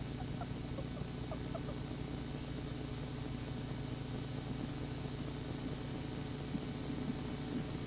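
Steady hiss and low hum with a thin high whine, the noise floor of an old off-air TV recording. A few faint short chirps in the first two seconds.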